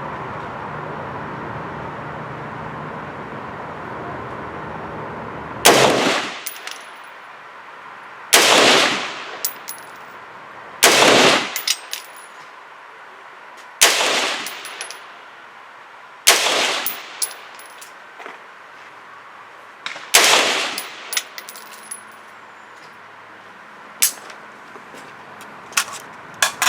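AR-15 rifle firing six single semi-automatic shots, a few seconds apart, each with a ringing tail and small metallic clinks after it. A steady rushing noise runs for the first few seconds before the first shot.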